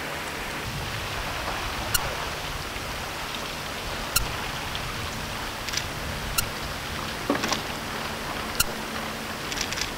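Lake freighter moving through broken river ice: a steady rushing wash with scattered sharp cracks and clicks, irregularly one to two seconds apart, and a faint low hum in the second half.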